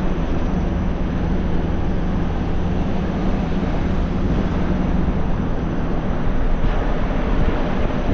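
Steady hum of a vehicle's engine with road noise while driving, a constant low drone with no changes.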